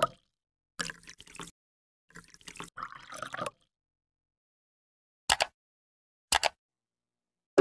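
Liquid drip-and-splash sound effects in two short bursts, then two quick mouse-click sounds about a second apart.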